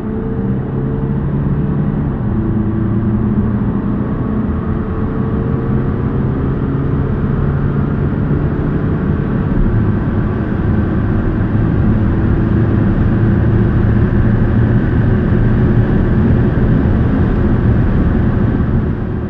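2.0-litre TDI inline-four turbo-diesel pulling at full load after a kickdown, heard from inside the cabin. Its note rises and steps down at a few upshifts of the 7-speed S tronic dual-clutch gearbox, while wind and tyre noise build with speed.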